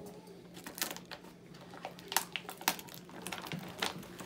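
A paper gift bag being handled and rummaged through, making irregular sharp clicks, taps and rustles.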